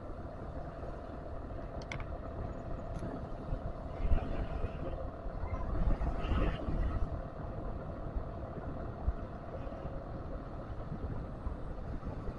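Motorcycle engine running steadily while riding, with a constant hum and low road and wind rumble; it gets louder and rougher for a few seconds about a third of the way in.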